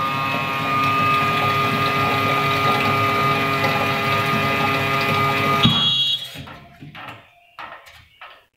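Milk vending machine's dispensing pump running with a steady, many-toned whine while milk fills the can. It cuts off suddenly a little after five seconds, with a click and a short high beep, and a few faint knocks follow.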